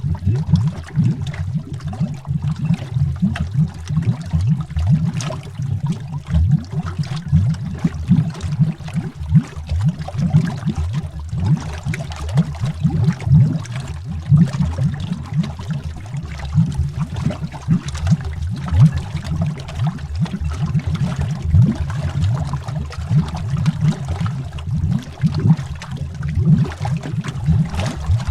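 Underwater bubbling: a continuous low, burbling rumble of many bubbles rising through water, made up of rapid small pops and gurgles with fainter crackle above.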